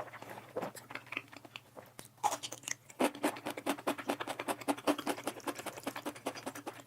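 A person chewing a mouthful of spicy fire noodles close to the microphone: wet mouth clicks and smacks, sparse at first, then coming several a second from about halfway through.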